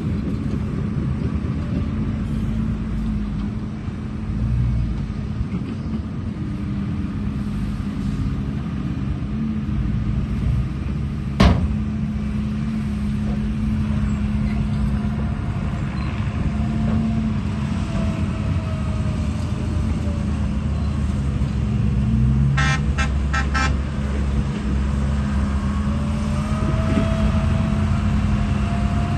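Steady motor hum with a faint wavering whine, broken by one sharp click about eleven seconds in and a quick run of clicks near the end.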